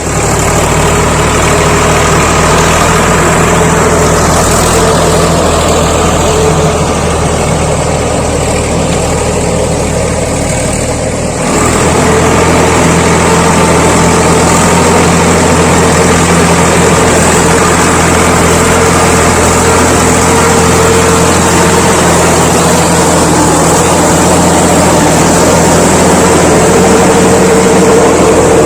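Swaraj 855 FE tractor's diesel engine running steadily under work, turning a rotavator. About eleven seconds in it abruptly gets louder and fuller.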